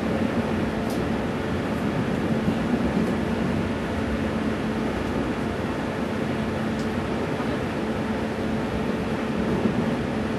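Steady running noise inside a moving NJ Transit passenger coach: wheels rumbling on the rails with a constant hum. There are a couple of faint ticks, one about a second in and one near the middle.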